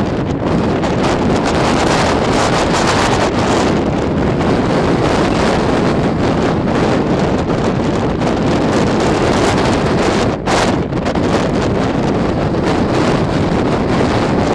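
Strong wind buffeting the microphone on an exposed ridge: a loud, steady rumbling hiss that briefly drops away for a moment about ten seconds in.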